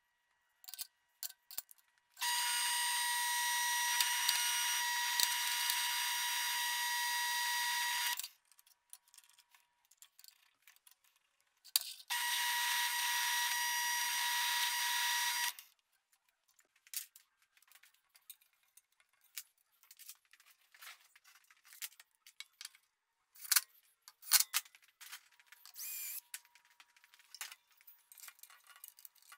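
Benchtop drill press drilling a steel plate, in two steady runs of about six and three and a half seconds, with a steady high whine over the cutting noise. After that come scattered light clicks and knocks of metal parts being handled.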